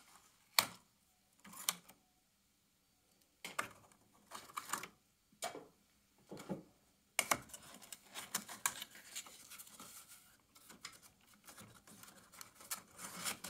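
Faint handling sounds: sharp clicks of side cutters snipping zip ties, and the rustle and scrape of cardboard packing being worked off a 3D printer's tool head. The clicks and rustles come in scattered bursts, busier in the second half.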